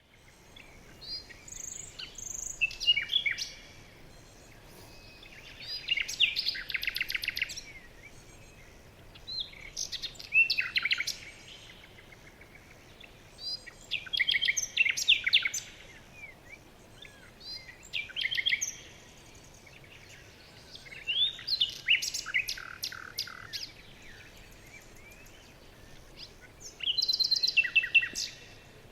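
Birdsong: loud phrases of rapid chirps and trills repeat about every four seconds, with quieter calls between them, over a faint steady hiss.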